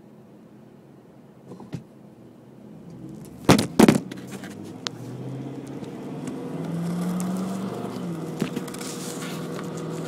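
Car engine and tyre noise heard inside the cabin as the car pulls away from a standstill and speeds up, the engine note rising and then stepping down once. Two loud knocks about three and a half seconds in.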